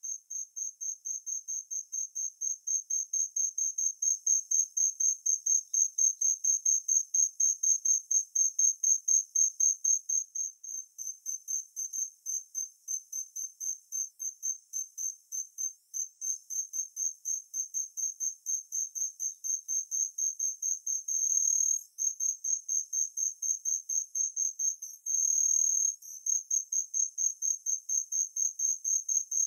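Male golden lark cricket (kinhibari, Natula matsuurai) singing: a high, clear chirp repeated about three times a second. Twice, about two-thirds of the way through, it breaks into a short unbroken trill, 'ri-ri-ri-ri', the longest lasting about a second.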